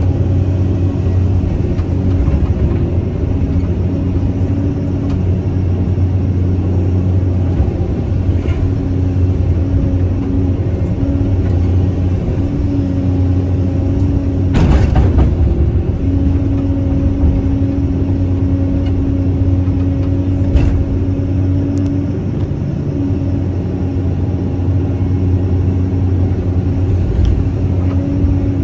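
Caterpillar 320C excavator's diesel engine running steadily under working load, with a pitched hum that drops out and comes back several times as the machine digs, swings and dumps. About halfway through there is a louder rushing burst.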